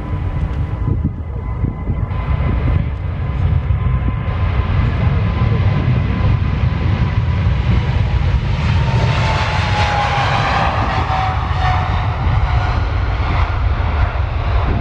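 Boeing 777's GE90 turbofan engines at takeoff thrust as the airliner accelerates along the runway: a loud, steady jet rumble with a fan whine. The whine drops in pitch about two-thirds of the way through as the aircraft passes.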